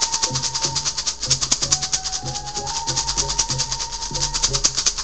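Hand rattle shaken fast and evenly, about ten shakes a second, with a thin held tone underneath that steps up and down in pitch a few times.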